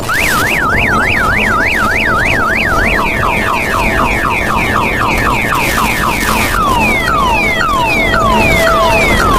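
Electronic car-alarm-style siren cycling through its tones: a fast up-and-down warble for about three seconds, then a run of repeated falling chirps that slow down from about four to two a second, over a steady noise.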